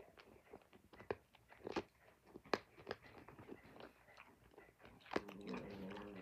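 A person chewing sour candy close to the microphone: irregular wet mouth clicks and smacks. About five seconds in, a steady hummed 'mmm' for about a second.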